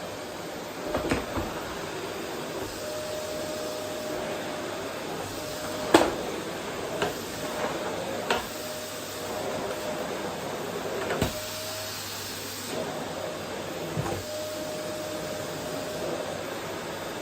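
Vacuum cleaner running steadily as it is worked over a wooden floor, with a hum that comes and goes. Scattered knocks and clicks sound over it, the loudest about six seconds in.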